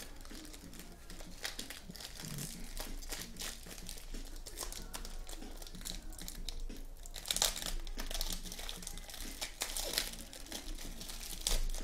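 Foil trading card pack wrappers crinkling as hands tear open and handle them, in irregular crackles that get louder about seven seconds in.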